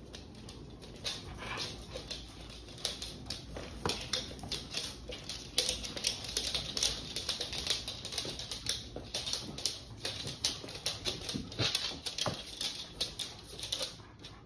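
A dog's claws clicking on a hard floor as it walks and moves about: a quick, irregular run of taps.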